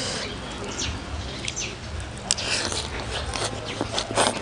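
Close-miked eating: chewing and biting into a mouthful of rice noodles and raw vegetables, with scattered short mouth clicks, the sharpest about two seconds in and near the end.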